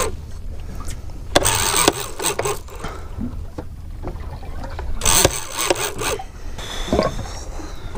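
Large big-game fishing reel being cranked in two bursts of about a second each while fighting a hooked bluefin tuna, over a steady low rumble.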